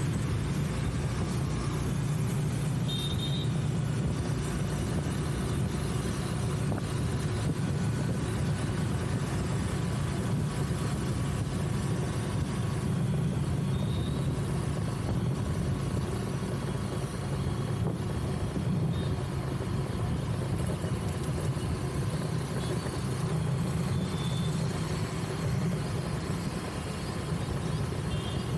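Steady traffic and road noise from driving along a busy city road: a continuous low engine and tyre rumble with a haze of wind and passing vehicles, and a few brief faint high tones.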